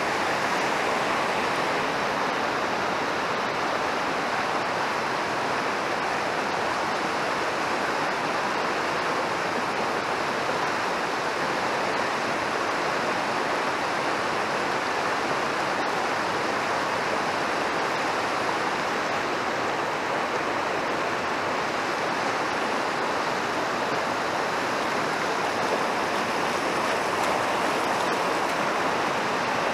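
Fast mountain river rushing through whitewater rapids over rocks: a steady, unbroken wash of water noise.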